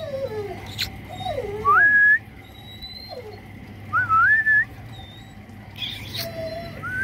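A person whistling short rising calls to a dog, loudest about two seconds in and again about four seconds in, with a short one at the very end. Fainter falling dog whines come in between.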